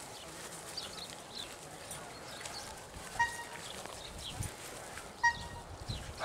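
Dogs vocalising in the background, with two short, high-pitched cries about three and five seconds in.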